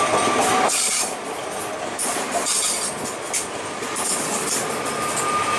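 Electric multiple unit (Koleje Śląskie 22WEd Elf) passing close alongside the platform: the rolling noise of its wheels on the rails, with a steady high whine that drops away about a second in and comes back near the end.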